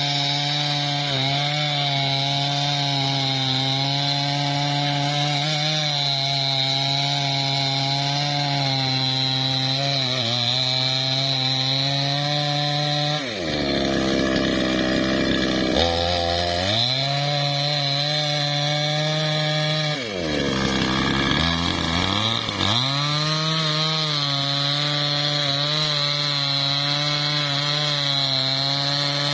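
Maestro MT6500L two-stroke chainsaw running at high revs as it cuts into the base of a teak trunk. Twice the throttle is eased and the engine falls toward idle, then revs back up into the cut.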